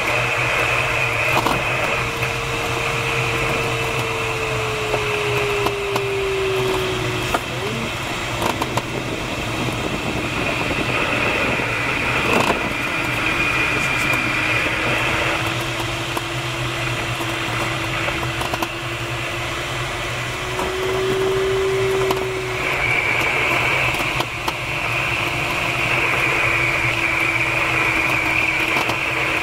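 Steady rush of airflow inside a DG-1001 glider's cockpit in gliding flight. Under it a thin steady tone slowly drifts down in pitch, rises a little about two-thirds of the way through, then settles lower again. A couple of faint clicks are heard.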